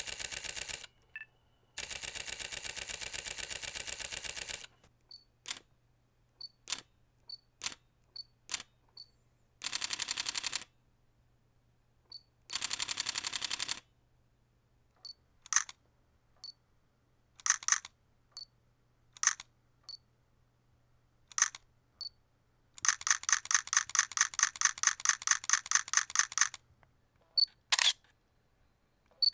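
A run of different camera shutter sounds: single shutter clicks and click-clack pairs, alternating with bursts of rapid continuous-shooting clicks. The longest burst comes near the end, at about five or six shots a second.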